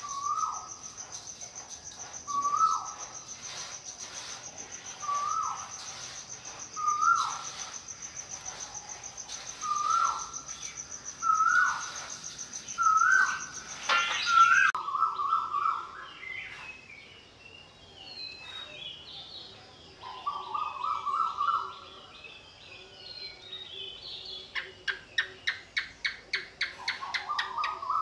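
Birds calling: a short, hooked call repeated about every one to two seconds over an insect's steady high buzz, which stops abruptly about halfway through. After that come scattered higher chirps, and near the end a fast run of clicking notes.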